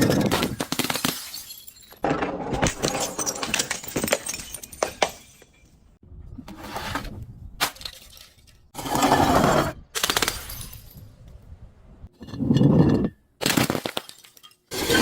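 Glass bottle breaking and crunching in a series of bursts, about six in all, full of sharp cracks and tinkles, with a long crackling stretch early on and short gaps between the later bursts.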